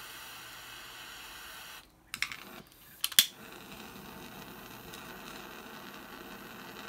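Wind-resistant jet-flame butane BBQ lighter burning with a steady hiss. It cuts out just under two seconds in, a few sharp clicks follow, and the hiss resumes right after the loudest click about three seconds in, as the lighter is re-lit.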